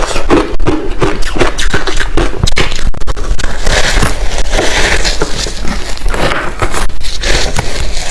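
Close-miked crunching of large chunks of ice being bitten and chewed: a dense, irregular run of cracks and crackles as the ice breaks between the teeth, thickest about four to five seconds in.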